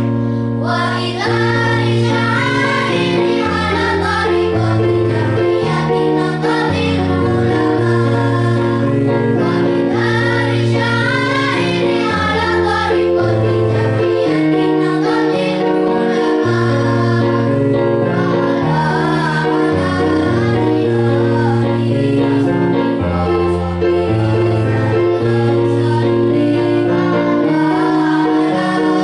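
Children's choir singing in parts with vibrato, accompanied by an electronic keyboard playing held chords and bass notes.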